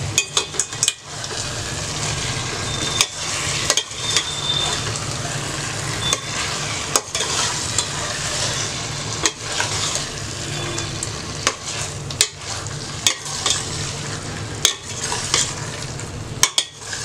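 Steel spatula stirring fried chicken pieces through sizzling masala gravy in a stainless steel pot, with irregular clicks and scrapes of metal against the pot over a steady sizzle.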